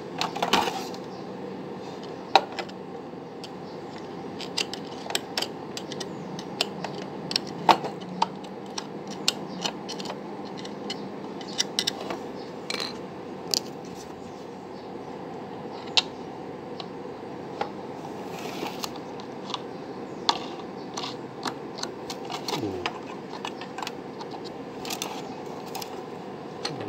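Irregular small clicks and taps of a blender's drive gear and tools being handled while the gear is worked back onto the motor shaft, over a steady background hiss.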